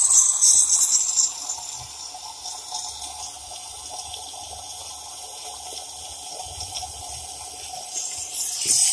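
Water running steadily, with a louder hissing spray in the first second and again near the end.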